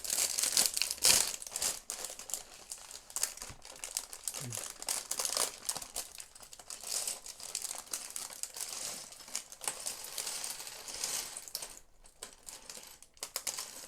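Thin plastic Lego parts bag being torn open and crinkled while handled, with the small plastic pieces inside rattling and clicking. The crinkling comes in irregular spells, loudest about a second in.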